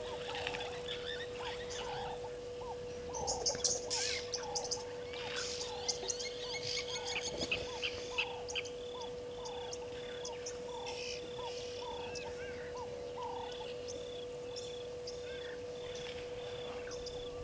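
Wild birds calling in the bush: a rapid series of short repeated notes for the first half, then an evenly spaced run of high chirps about twice a second, with scattered twittering on top. A steady single-pitched hum runs underneath throughout.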